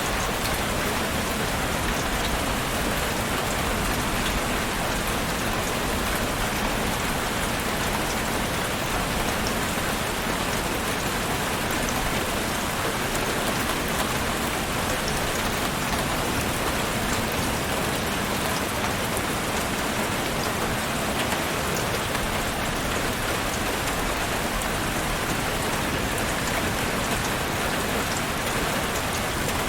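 Heavy rain falling steadily, a dense, even hiss of many drops on surfaces with no thunder or pauses.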